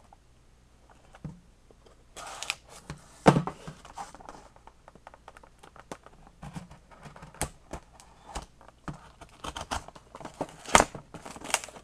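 Packing tape being slit and torn off a cardboard shipping box and the flaps pried open by hand: scattered scraping, crackling and tearing with sharp snaps, the loudest about three seconds in and again near the end.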